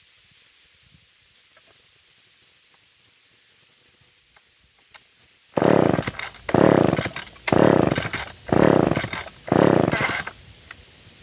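McCulloch two-stroke chainsaw being pull-started: five quick yanks on the starter cord about a second apart, beginning about halfway in, each spinning the engine over with a short whirring rasp. The engine does not catch.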